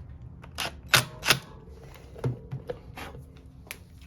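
A series of sharp clicks and knocks, the two loudest close together about a second in, from a screwdriver bit working at a stripped screw in a motorcycle's front wheel hub. The bit is not gripping the screw.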